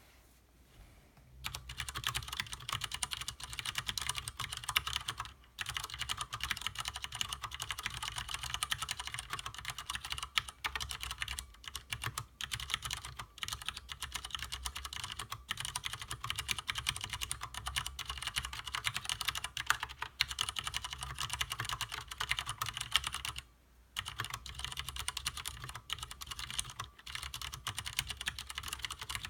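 Fast, continuous typing on a stock Leopold FC750R tenkeyless mechanical keyboard with Cherry MX Clear tactile, non-clicky switches: a rapid patter of keystrokes. It starts about a second and a half in and pauses briefly twice, about five seconds in and again near 24 seconds.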